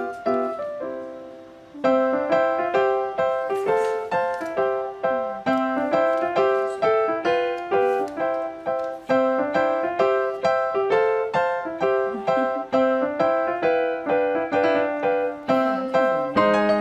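Background music: a bouncy piano tune with rapid repeated notes and a steady beat, briefly dying away about a second in before starting again.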